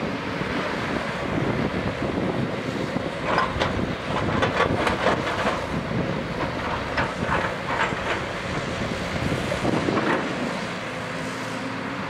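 JCB crawler excavator's diesel engine running under load as it digs and slews, with a run of sharp metallic clanks and scrapes about three to eight seconds in.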